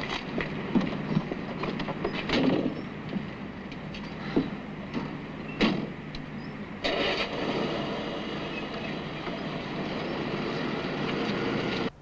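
Car door knocks and a door shutting on a Citroën DS, then from about seven seconds in a louder, even noise of the car running as it moves off.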